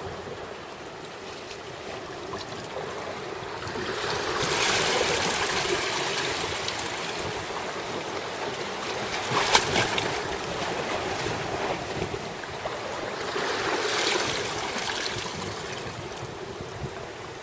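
Sea water washing in slow swells a few seconds long, with wind on the microphone. There is one short, sharp sound about nine and a half seconds in.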